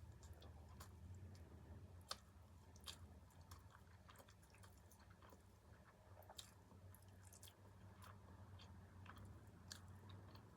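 Faint close-up chewing of food, with scattered sharp clicks and smacks of the mouth over a steady low hum.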